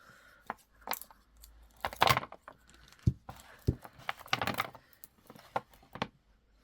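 A strand of 8mm Picasso jasper round beads being cut open, the loose stone beads clicking and rattling into a tray. Scattered clicks, with louder rattles about two seconds and four and a half seconds in.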